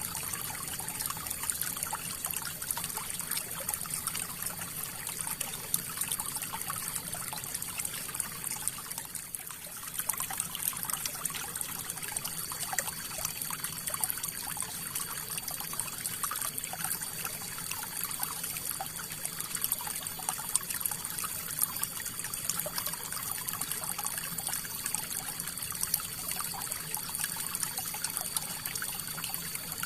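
River water flowing, a steady rush with many small trickles and splashes, easing briefly about nine seconds in.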